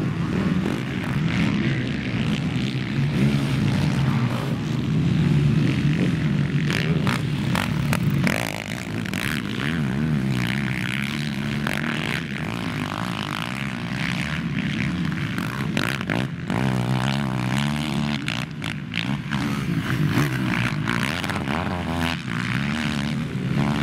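Racing quad (ATV) engines revving hard as several quads accelerate over the dirt track, their pitch rising and falling and overlapping as they pass.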